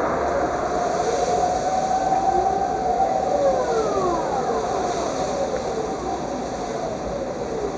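Several civil-defence warning sirens sounding across the city, their overlapping wails rising and falling against a held tone. They fade gradually: the Dutch monthly noon siren test.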